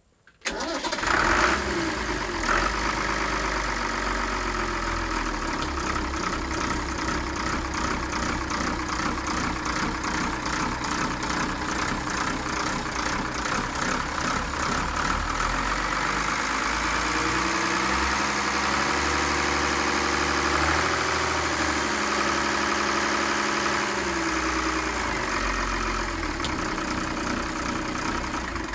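A Mermaid-marinised turbocharged marine diesel engine starts about half a second in and catches at once, then runs at a steady idle. Its speed rises a little for several seconds past the middle and then drops back to idle.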